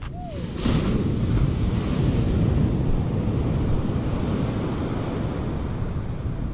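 Surf breaking and washing up the beach, with wind buffeting the microphone. It gets louder just under a second in and then holds steady.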